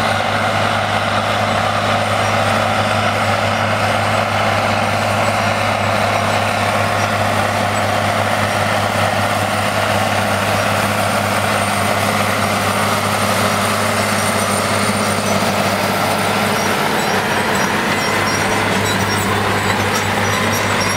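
Steiger Bearcat IV CM-225 tractor's Caterpillar 3306 DIT turbocharged six-cylinder diesel running steadily under load while pulling a soil finisher through tilled ground.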